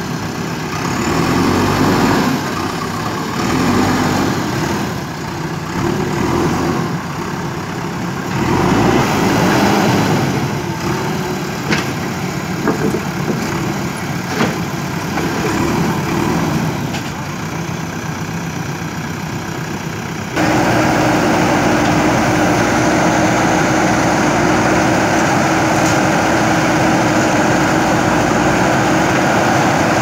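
JCB 3DX backhoe loader's diesel engine running, rising and falling as the machine works, with two sharp knocks near the middle. About two-thirds of the way in it switches abruptly to a louder, steady engine drone.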